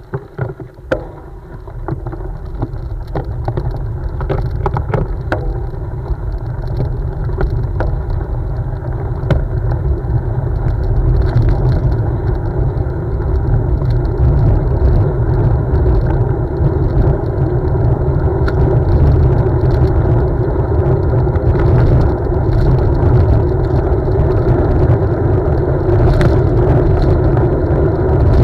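Wind rushing over the microphone and tyres rolling on a gravel path as a Focus Mares cyclocross bike is ridden, with scattered clicks and rattles from the bike on the rough surface. The noise builds over the first ten seconds or so as the bike gathers speed, then holds steady.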